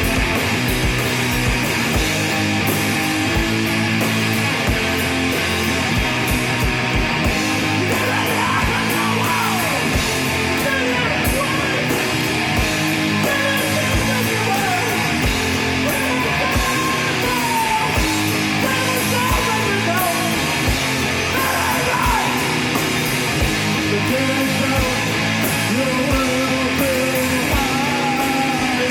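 A live rock band playing loud, heavy guitar music over a steady, even drum beat, with shouted or sung vocals coming in about eight seconds in.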